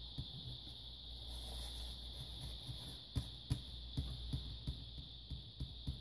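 Faint, irregular small ticks and rubbing of a paper towel damp with isopropyl alcohol, wiping old thermal compound off a laptop CPU and heatsink, over a steady low hum and high hiss.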